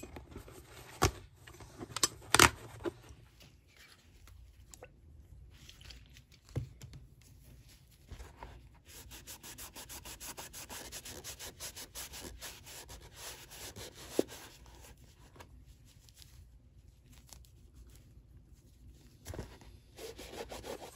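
A few sharp metal clicks from a tool working old nails out of the shoe's sole in the first few seconds. Then a cloth rubs over the leather upper in quick, even strokes, wiping it down with turpentine.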